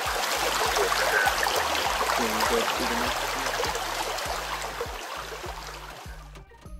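A shallow stream running over rocks: a steady rush of water that grows quieter near the end.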